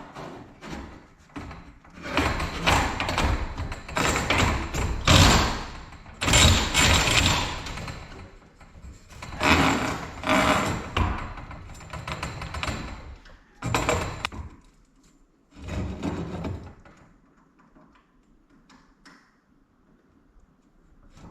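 Metal garage door torsion spring hardware being worked along the steel shaft: repeated bursts of clanking and scraping that die down over the last few seconds.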